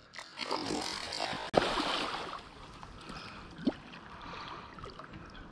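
Water splashing and sloshing as a hooked pike thrashes at the surface while it is drawn into the landing net, with a sharp knock about a second and a half in.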